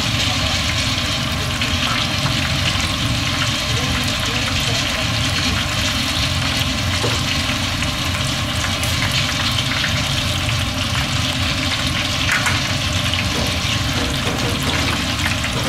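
Breaded pork cutlets deep-frying in hot oil: a steady sizzle with fine crackling throughout.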